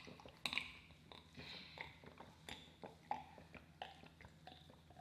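A series of faint gulps and swallows from a person drinking water from a glass mug, close to the microphone, in an otherwise nearly silent room.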